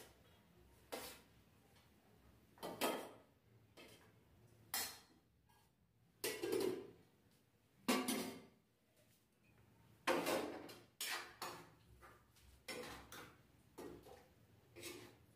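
Metal serving spoon clinking and scraping against a metal cooking pot and a steel plate as cooked rice is dished out, then a ladle of curry: about a dozen short, irregular clinks and scrapes.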